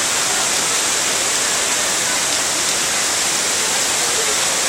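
Margoon waterfall: water pouring and splashing down the rock face as a steady, unbroken rush.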